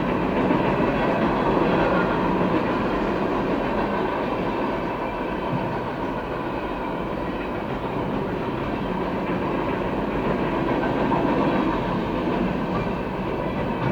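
Freight train cars loaded with empty trash containers rolling past at steady speed, a continuous noise of steel wheels on the rails.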